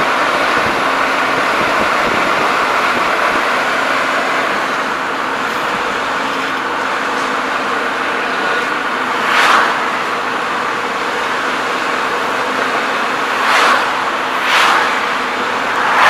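Steady road and engine noise of a car, heard from inside the cabin while driving. Four brief louder whooshes from other vehicles going past come in the second half.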